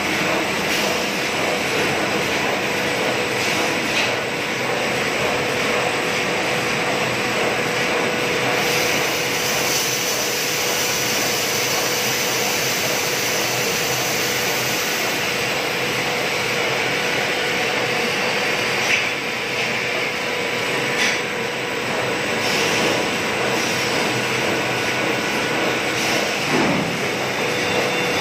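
Plastic blown-film extrusion machine running: a steady rushing hiss of blown air over a constant hum, with a couple of brief knocks in the second half.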